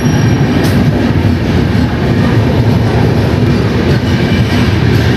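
Express train pulling out of a station and gathering speed, heard from on board: a loud, steady rumble of wheels on rails, with one sharp knock about a second in.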